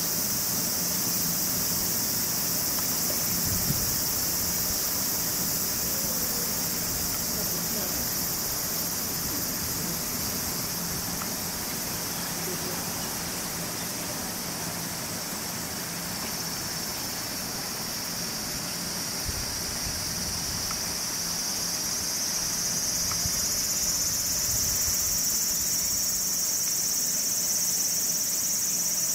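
A steady, shrill chorus of insects, with a louder, slightly lower-pitched layer joining about halfway through.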